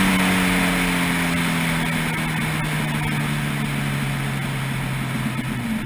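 Honda CBR1000RR's inline-four engine decelerating, its revs falling steadily, with wind rushing over the microphone.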